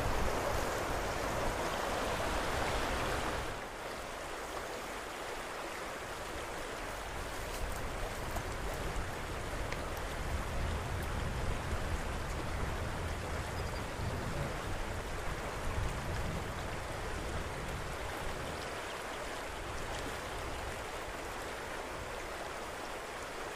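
Shallow, stony river running over rocks in a steady rush of water. It drops a little about three and a half seconds in, and low rumbles come and go underneath.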